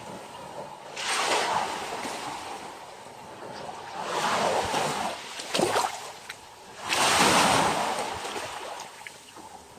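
Ocean waves breaking on a beach, each surge of surf swelling and washing back, the loudest near the end.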